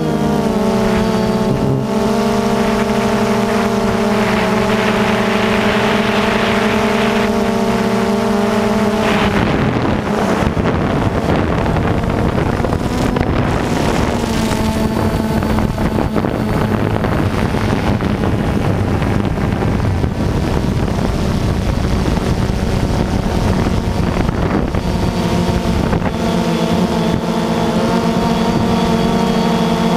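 DJI Phantom 2 quadcopter's electric motors and propellers buzzing loudly at close range, heard from the camera on the drone itself: a steady hum of several stacked tones whose pitch shifts slightly with motor speed. From about 9 to 26 seconds in, wind rushing over the microphone largely covers the tones, which then come back clearly.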